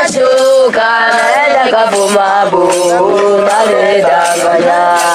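A group of voices singing a chant together, several lines overlapping at different pitches, with a lower voice held steady underneath for a while.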